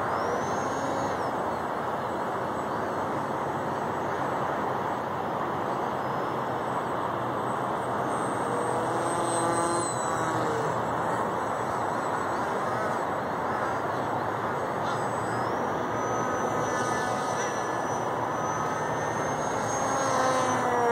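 Small brushless electric motor driving a propeller on an RC foamboard jet: a thin whine that rises and falls with the throttle, heard faintly over a steady rushing hiss.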